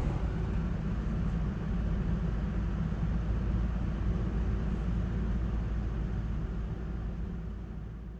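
Steady tyre and road rumble heard inside the cabin of a moving Tesla Model X 100D, an electric car with no engine note. It fades out near the end.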